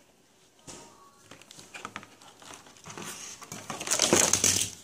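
Crinkling and rustling of trading-card packaging being handled, growing louder about four seconds in.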